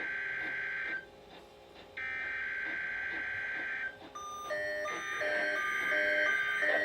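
NOAA Weather Radio SAME header tones for a Required Weekly Test: bursts of digital data, each just under two seconds long with a one-second gap, one ending about a second in, the next running about two to four seconds in, and a third starting about five seconds in. From about four seconds in, an alert device joins with short beeps in a repeating pattern of several pitches.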